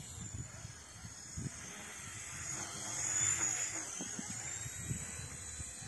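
Small electric RC helicopter (WLtoys V911S) in flight, its motor and rotor giving a thin high whine that wavers in pitch with the throttle and grows louder about three seconds in. Low rumbles of wind on the microphone underneath.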